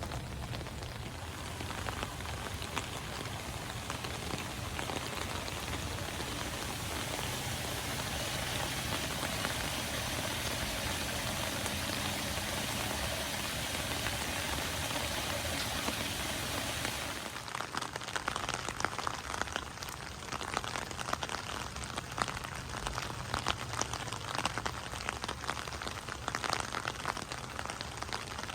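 Steady rain falling. About seventeen seconds in the sound changes abruptly to closer, separate drops ticking sharply and irregularly on nearby surfaces.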